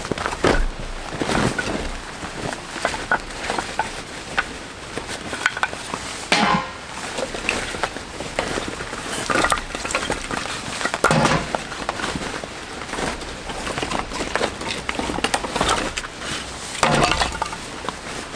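Irregular knocks, clinks and rustles of camp gear being handled, with louder clunks now and then, over steady rain.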